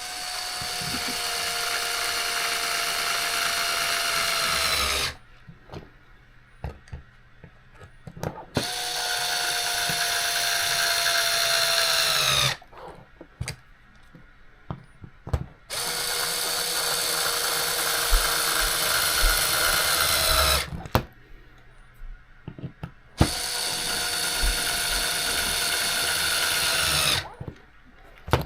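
Cordless electric screwdriver running in four spells of about four to five seconds each, its motor whine dropping in pitch as it stops each time, driving screws. Small clicks and taps fall in the pauses between spells.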